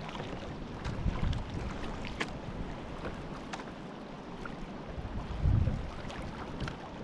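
Wind buffeting the microphone on a fishing kayak at sea, with scattered small splashes and clicks around the boat. A stronger gust rumbles about five and a half seconds in.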